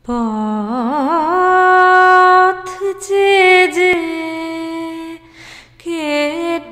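A woman singing an opening phrase without clear words. Her voice wavers through quick ornamented turns as it rises, then settles on long held notes. There is a breath just past halfway before she sings on.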